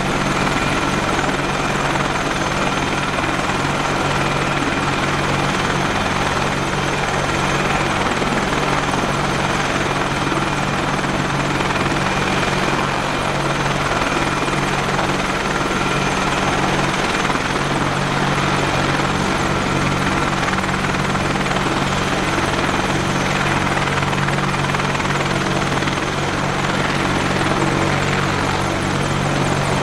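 AH-64D Apache attack helicopters running: a steady drone of rotors and twin turboshaft engines with thin high turbine whine tones, holding even throughout.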